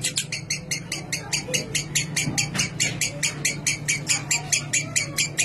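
Lovebird 'ngekek': one long, unbroken chattering trill of rapid, shrill notes at about eight a second, with no break.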